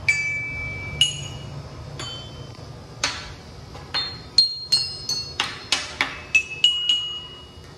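A series of sharp clinks, each with a brief ringing tone at a different pitch. They come about a second apart at first, then quicker, around three a second, from the middle on.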